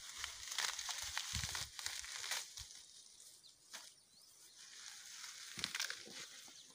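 Rustling and crackling of a bundle of leafy plant stems being gathered up and handled, with many small crisp clicks, busiest in the first couple of seconds and again near the end.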